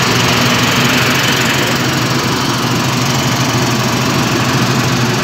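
Claas Tucano 320 combine harvester's Mercedes diesel engine running steadily and loudly, a full rumble with no change in speed.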